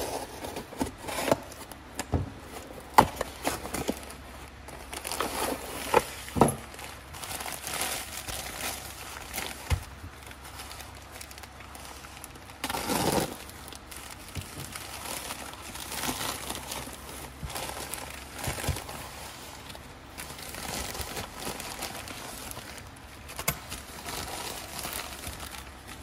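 Postal packaging being opened and handled: a cardboard mailing box and a padded postal envelope rustling and crinkling, with irregular taps and knocks as items are set down on a wooden desk. A louder rustle comes about halfway through.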